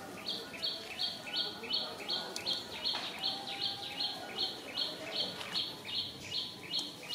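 Rhythmic high-pitched chirping from a wild animal: a two-step note, stepping between two pitches, repeated about three times a second at an even pace.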